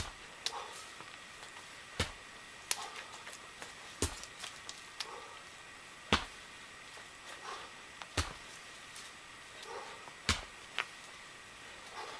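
Sledgehammer strikes at a steady pace, a sharp impact about every two seconds, with lighter clicks and rustling between.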